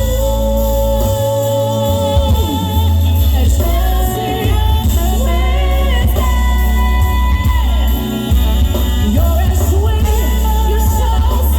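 Live band music with a singer holding long, wavering notes over heavy bass.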